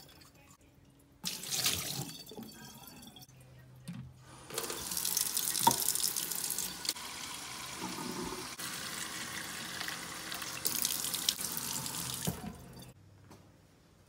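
Kitchen tap running into a glass bowl held under it in a stainless steel sink, filling it with water. A short spell of running water about a second in, then a longer steady run of about eight seconds that stops near the end.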